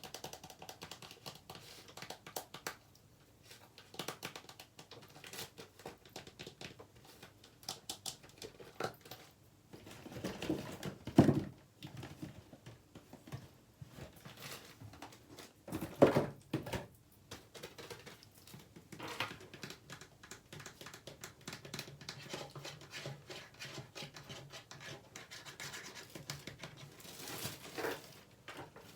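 Fast tapping and scratching: a dense run of quick small clicks and scratches, with two louder bursts about 11 and 16 seconds in.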